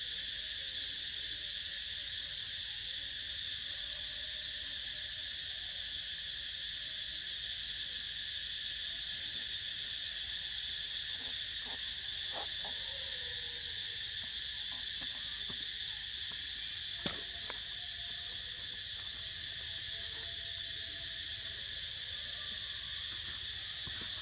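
Steady, unbroken insect chorus, a high-pitched drone in several layers. A few light clicks come in the middle, with one sharper snap about two-thirds of the way through.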